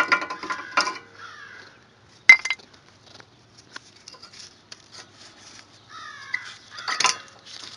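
Disc brake pads being worked out of the caliper bracket: metal clicking and rattling in the first second, a sharp metallic clank a little over two seconds in, light ticks, a short squeak around six seconds, and another clank near the end.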